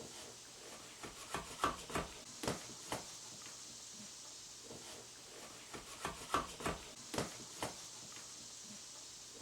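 Hammer tapping small nails into wall paneling to fasten a loose piece back: two short runs of quick, light knocks, one about a second in and another a little past halfway.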